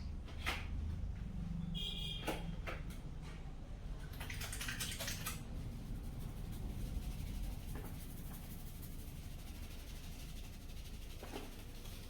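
Hands-on massage: a few light clicks and taps in the first three seconds, then about a second and a half of rubbing about four seconds in, over a steady low rumble.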